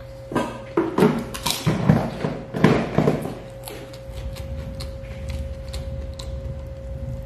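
Close-up eating sounds from hand-eating a meal: a cluster of chewing and food-handling noises in the first three seconds, then small clicks and rustles of fingers picking at roast chicken over a steady hum.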